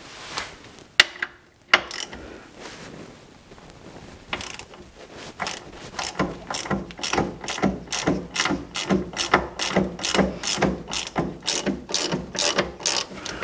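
Hand ratchet wrench clicking as it is swung back and forth on a stubborn bolt under a truck's front end, in a steady run of about three clicks a second through the second half, after two sharp clicks about a second in.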